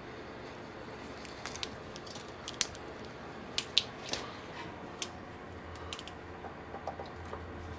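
A few sharp plastic clicks as a fan's power cord and plug are handled and plugged in. Near the end, a low steady hum sets in as the newly mounted wall fan's motor starts up.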